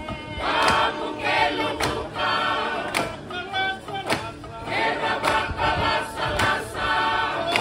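A group of Fijian performers singing together in chorus, with a sharp beat struck about once a second.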